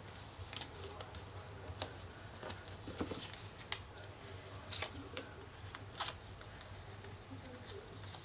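Double-sided tape and cardstock being handled: scattered soft clicks and crinkles as tape is pulled from the roll and its backing peeled off a paper oval.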